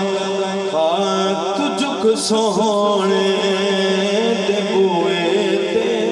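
A man singing a Punjabi devotional kalam into a microphone, in long wavering melismatic phrases over a steady held drone.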